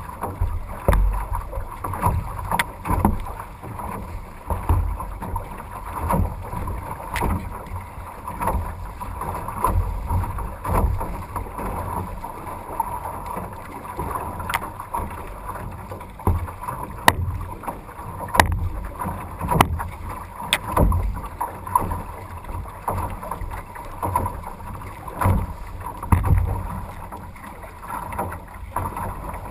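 A paddled canoe crossing choppy water: gusty wind rumbling on the microphone, water rushing and slapping along the hull, and occasional sharp knocks scattered through.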